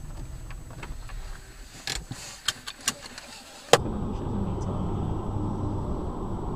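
Car cabin noise picked up by a dashcam: a low road rumble with a few sharp clicks, then an abrupt cut with a click to a louder, steady low engine hum.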